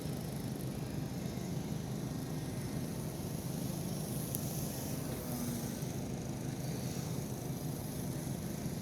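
FT Simple Scout foam RC plane's electric motor and propeller running in flight, a steady drone under a low outdoor rumble.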